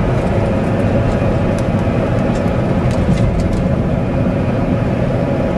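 Steady road noise of a car heard inside the cabin: engine and tyres running on a sanded road, with a few faint ticks.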